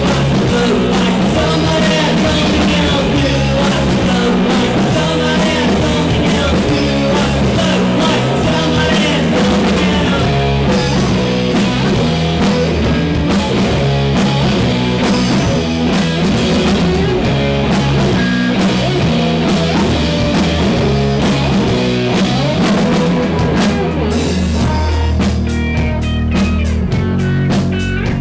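Live rock band playing: electric guitar, electric bass and drum kit together, loud and steady. Near the end the playing thins out and separate drum hits stand out.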